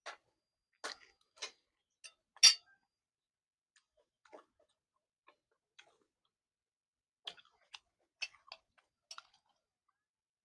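Metal spoon clinking and scraping on a ceramic plate while eating: about a dozen scattered sharp clicks, the loudest about two and a half seconds in.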